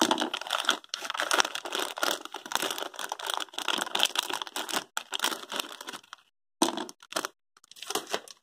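Plastic packaging crinkling and rustling as plastic spring clamps are pulled out of it and laid down. It goes on dense for about six seconds, then breaks into a few short rustles near the end.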